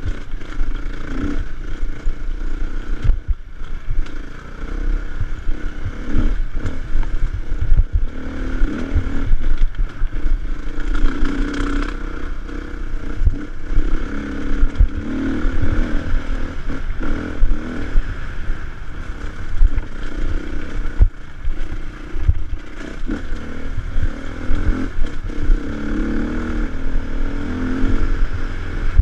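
Off-road motorcycle engine running and revving up and down, with frequent knocks and rattles from the bike jolting over rough ground.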